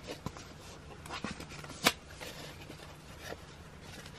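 Packaging and photo cards being handled: short rustles and a few sharp clicks, the loudest about two seconds in.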